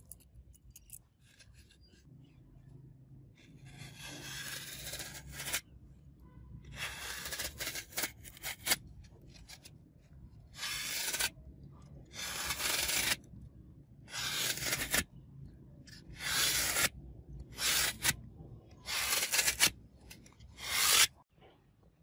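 A series of about ten rasping rub or scrape strokes, each under a second long, coming about every one to two seconds and more often toward the end.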